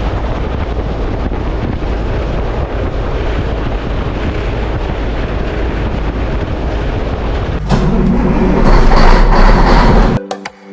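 Tractor and hay baler running, a steady heavy rumble that gets louder with a low hum about three-quarters of the way in. It cuts off suddenly near the end, where music begins.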